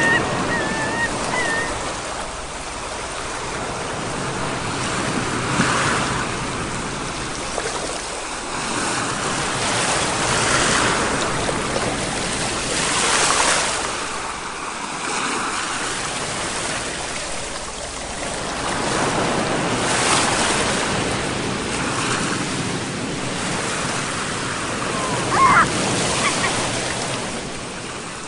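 Sea waves breaking and washing on the shore, swelling and fading every several seconds. Short, high chirping calls can be heard in the first second or so and again about 25 seconds in.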